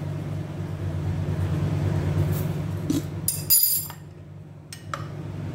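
Metal spoon clinking against a glass jar while stirring salt into a salad dressing: a short cluster of clinks about three and a half seconds in and another single clink near five seconds, over a steady low hum.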